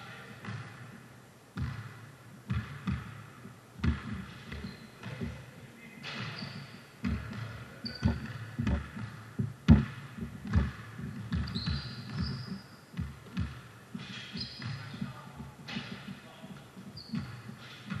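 A basketball bouncing on a court floor in irregular thumps, the loudest a little after the middle, with short high sneaker squeaks now and then.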